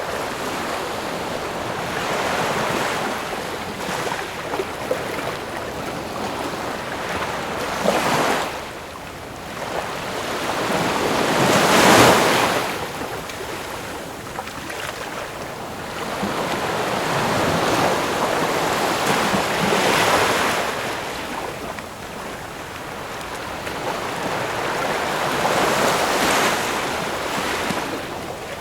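Ocean waves breaking and washing up the shore in slow surges, each swelling and falling away over several seconds; the loudest break comes about twelve seconds in.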